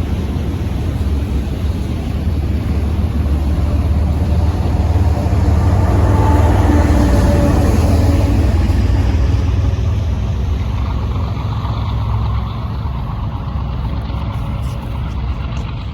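Diesel freight train passing: deep rumble of the locomotives and train that builds to its loudest around the middle, then eases off.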